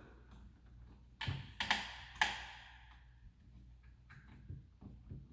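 A few sharp clicks and knocks, then faint light ticks, as a refrigerator's mechanical thermostat control is worked by hand. No compressor hum follows: the compressor does not start.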